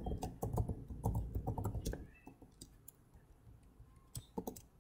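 Typing on a computer keyboard: a quick run of keystrokes for about two seconds, a pause, then a few more keystrokes near the end.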